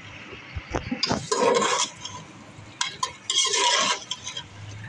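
Metal spoon stirring and scraping sliced onions in hot oil against the bottom of an aluminium pressure cooker, in irregular bursts of scraping with clinks of metal on the pot.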